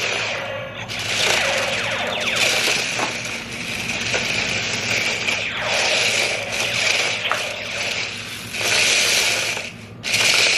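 Small electric drive motors and plastic gearboxes of toy remote-control laser-tag tanks whirring as they drive and turn, the pitch sliding up and down and the sound swelling and easing off, with a short dip near the end.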